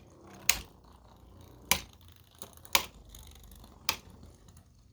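Two 3D-printed Beyblades spinning in a plastic stadium: a low steady whir broken by four sharp plastic clacks, about one a second, as the tops hit each other.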